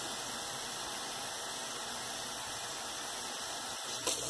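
Water pouring in thin streams from a plastic measuring jug into a bucket of foamy liquid soap: a steady splashing hiss.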